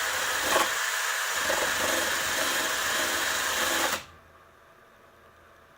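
Handheld power tool running while it grinds down cured, foamed-up Gorilla Glue to flatten it. It cuts off suddenly about four seconds in.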